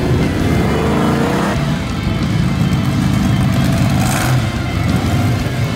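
Monster truck engine running loud, its pitch rising over the first second and a half as it revs, then running on steadily, with a short hiss about four seconds in.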